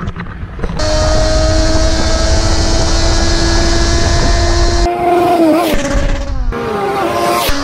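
Motorcycle engines running at steady revs under a rush of wind, then several engine notes dropping in pitch about five seconds in as the bikes slow.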